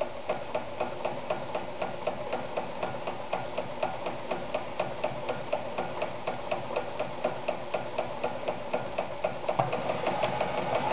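Pfaff 294 rotary-hook sewing machine stitching a wide zigzag at a long stitch length, with an even clicking of about four stitches a second. It picks up speed near the end.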